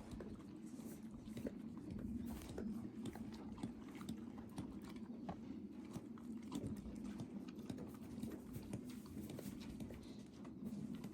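A horse chewing, with irregular crunching clicks as hard mint candy is crushed between its teeth, over a low steady hum.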